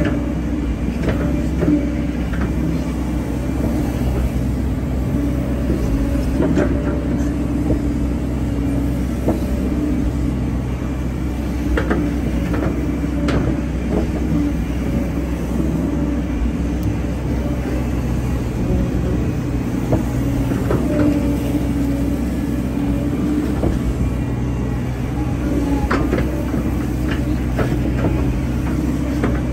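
A Hyundai hydraulic excavator's diesel engine running steadily under work, with scattered knocks and clunks from the working machine.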